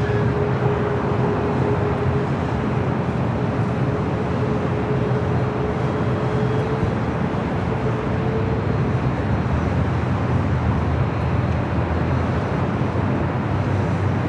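Steady rumble of jet aircraft engines at the airport, with a faint humming tone that fades out about nine seconds in.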